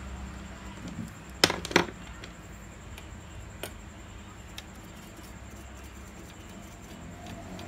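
Hand work on a TV mainboard: two or three sharp clicks about a second and a half in, then a few lighter ticks, over a low steady hum.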